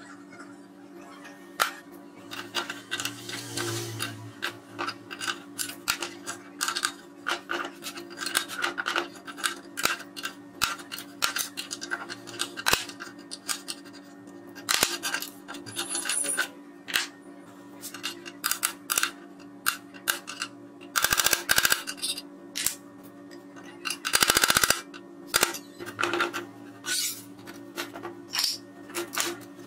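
Metal hand tools clicking, knocking and scraping on the rusty steel of an old cut-off saw as rusted pivot nuts, sprayed with penetrating oil, are worked loose with an adjustable spanner. Two louder rasping bursts come near the end. Soft background music plays throughout.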